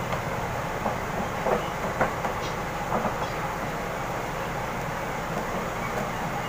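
Hands rolling and pressing a log of bread dough into a long rope on a stainless-steel table, with a few soft knocks in the first half, over a steady low hum.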